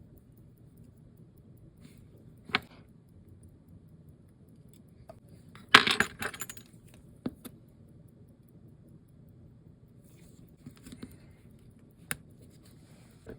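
Small metal clinks and clicks of watchmaker's tools and parts on the bench: a few single taps, with a quick run of clinks about halfway through as the loudest.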